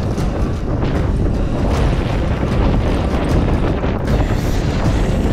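Strong wind buffeting the microphone on a sailboat under way in rough, choppy sea, a loud steady rumble with short gusty surges. The boat is in a constant 23–25 knot wind.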